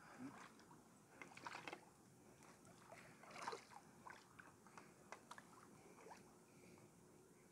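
Near silence: faint water lapping at the quay, with scattered small clicks and ticks.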